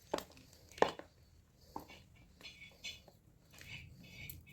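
Gym chalk blocks being crushed: a few sharp cracks in the first two seconds, the loudest just under a second in, then softer crackling crunches.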